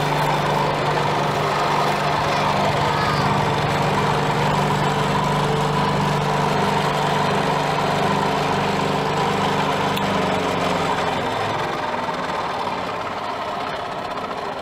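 Cotton candy machine running, its spinning head and motor making a steady mechanical hum; the low part of the hum fades out about eleven seconds in.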